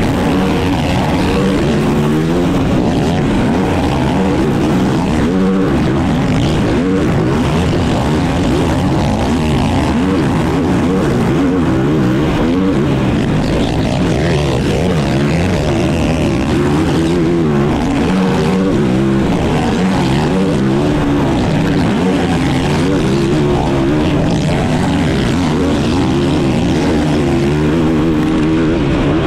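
Race ATV's engine at full racing load, its revs climbing and dropping again and again through gear changes and corners.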